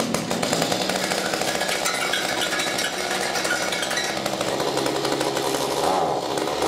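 Mantis tiller's Kioritz two-stroke engine running just after being started on its new carburetor. Near the end it is revved up and drops back, and the tines spin.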